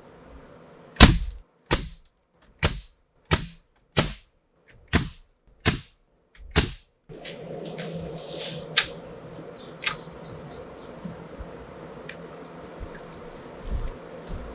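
A hammer striking eight times at an even pace, roughly one blow every 0.8 s, followed by a steady background hiss with a few light knocks.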